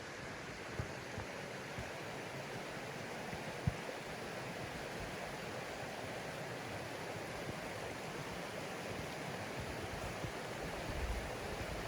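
Steady rush of a flowing mountain stream, with a couple of brief soft knocks, the sharpest about a third of the way in.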